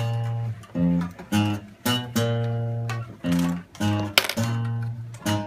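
Acoustic guitar plucked note by note in a short tune of about nine notes, swinging between a low note and higher ones, each ringing briefly. These are the pitches set for the class to match.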